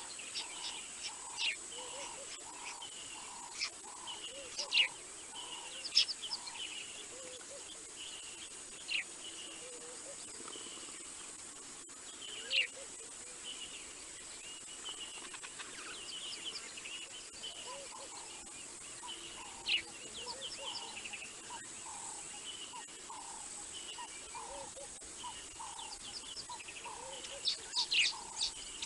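Wild birds calling over a steady high whine. Low notes repeat about twice a second, with higher trills and sharp single chirps between them. Near the end comes a quick run of sharp calls, several a second.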